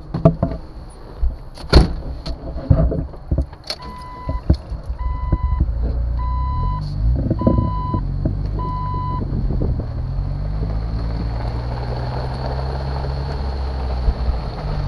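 Jeep Wrangler: a few knocks and a door slam as the driver gets in, then the engine starts and runs while a warning chime beeps five times, about once a second. The Jeep then drives off along a gravel driveway, its engine running steadily under tyre and road noise.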